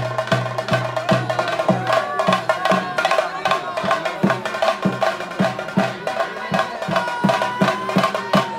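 Theyyam ritual music: drums beating a steady rhythm of about three strokes a second under a sustained, wavering melody line.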